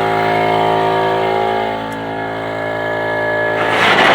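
An engine or motor running steadily at a constant speed, starting abruptly just before and followed near the end by a louder, noisy rush.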